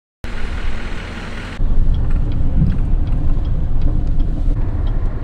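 Vehicle engine running while driving, a steady low rumble that gets louder about one and a half seconds in.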